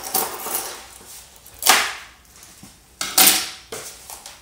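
A flat cardboard box being slit open with a knife and its flaps pulled apart: a few short scraping, tearing noises of cardboard and tape, the loudest about halfway through and again about three seconds in.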